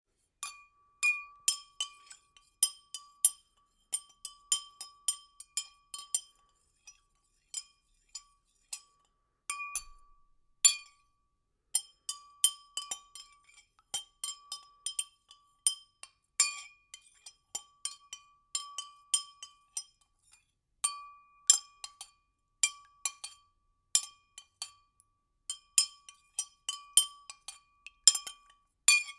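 A spoon stirring liquid in a glass, clinking against the glass wall in a quick irregular rhythm, each clink ringing briefly at the same pitch, with a few short pauses.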